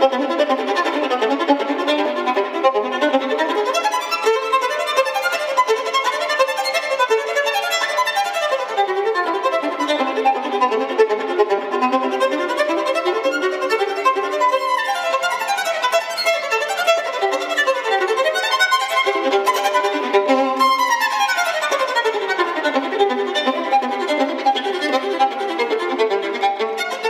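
Fast violin music with quick runs and several sweeping descending scales.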